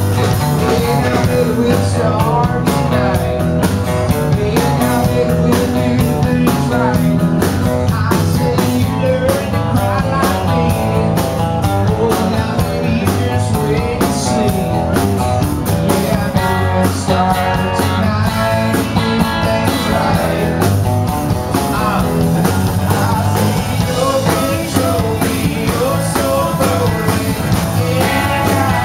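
Live country rock band playing a song: acoustic guitar and electric guitars over a drum kit.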